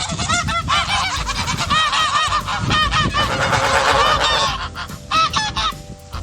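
A flock of geese honking, with many overlapping honks in quick succession. The calls thin out to a few scattered honks over the last second or two.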